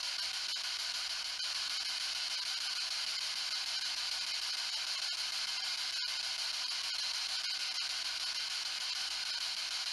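Ghost box (a radio scanning device) putting out a steady hiss of static, with a momentary dropout about six seconds in.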